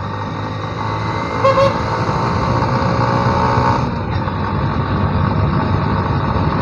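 Steady motorcycle and road-traffic noise heard while riding, with a short vehicle horn toot about one and a half seconds in.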